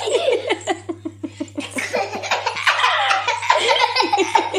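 A young child laughing: a long run of quick ha-ha pulses with short breaks between them.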